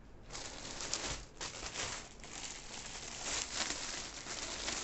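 Bags and purses rustling and crinkling as they are rummaged through by hand to pick out the next one: a continuous scratchy rustle with a few louder crinkles.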